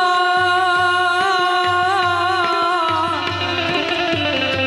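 Singer holding one long, slightly wavering note of a Gujarati folk lullaby, which slides down and ends about three seconds in, over harmonium and a steady tabla beat.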